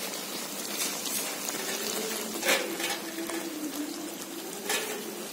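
Chicken curry gravy bubbling and sizzling steadily in a pan as it reduces to a thick semi-gravy. The slotted spatula clicks against the pan twice.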